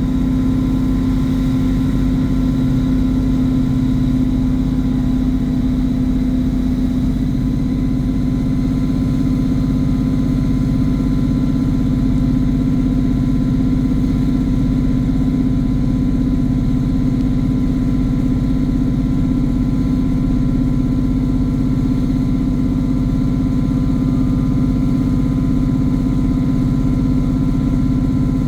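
Diesel engine of a Class 150 Sprinter diesel multiple unit running steadily: a low, even drone with a turbocharger whistle as thin steady high tones above it.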